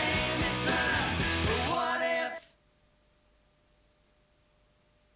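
Rock band playing with singing, which stops abruptly about halfway through as the song ends. It is followed by near silence with a faint steady hum.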